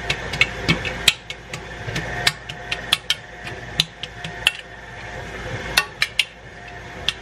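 A kitchen utensil clinking and tapping against a bowl or cake tin in a quick, irregular run of sharp knocks, a few a second.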